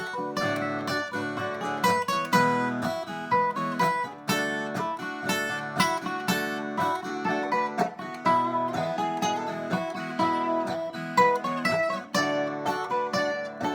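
Acoustic guitar picking and strumming an instrumental break between verses, with single-note lead lines over strummed chords.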